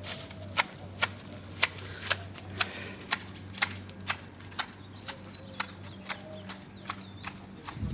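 Hand shears snipping foliage while a garden tree is trimmed and shaped, a crisp click about twice a second.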